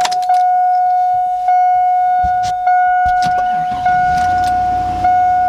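The 2002 Chevy Avalanche's dashboard warning chime, sounding once about every 1.2 s as a steady ringing tone, after the key is turned on before a cold start. A few clicks and a low rumble come in around the middle.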